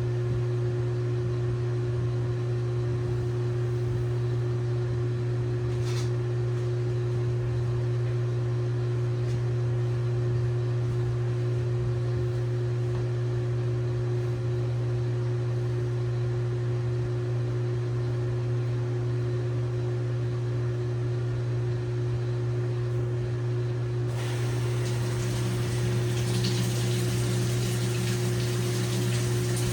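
LG WT7600HVA top-load washing machine running mid-cycle with a steady hum. Rushing water joins near the end.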